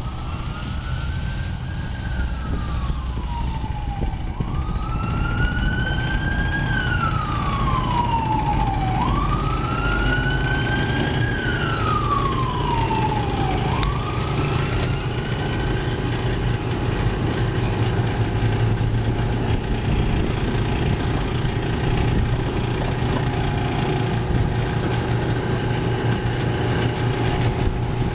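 An emergency vehicle's wailing siren, rising and falling in slow sweeps about every four and a half seconds, fading away a little past halfway. A steady low engine or traffic rumble continues underneath.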